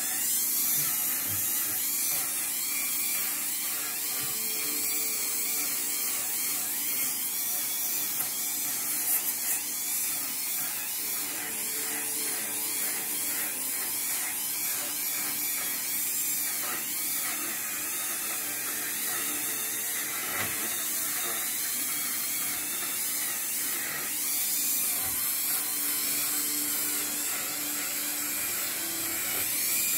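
Handheld electric rotary tool running steadily at high speed, its bit grinding and carving the dry deadwood of a bonsai trunk.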